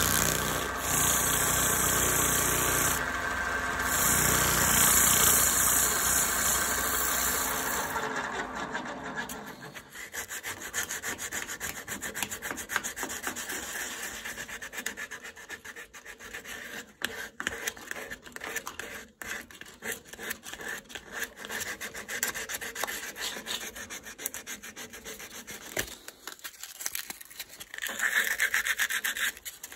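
Wood lathe running with a flat file scraping the spinning wooden vessel. The lathe winds down about eight seconds in. Then the stopped piece is rubbed by hand in quick scratchy back-and-forth strokes, most likely with sandpaper, stronger near the end.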